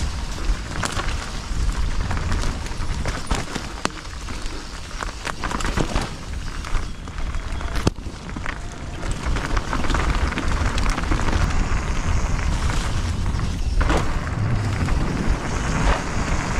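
Mountain bike riding down a dirt trail: tyres crackling over the ground and the bike rattling, with many sharp knocks over bumps and a steady low rumble underneath.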